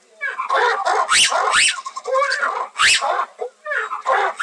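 An animal making a run of short, high, squeaky calls at irregular intervals, with lower chattering sounds in between.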